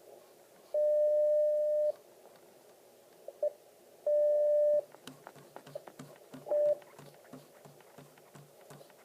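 Icom IC-7000 transceiver's receiver audio: a steady tone sounds three times over faint hiss, first for about a second, then shorter, then only briefly. From about five seconds in comes a low, even pulsing at roughly three a second: scanning noise heard with the squelch not turned up.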